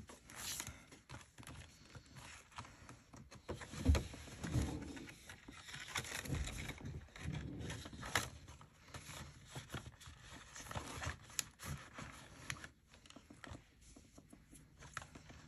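Paper bills and cash envelopes being handled by hand: rustling and flicking of the notes, with scattered light taps and clicks and a couple of soft knocks about four seconds in.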